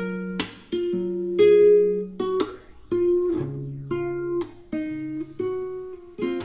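Music: a guitar playing a melody of plucked notes, each starting sharply and ringing on.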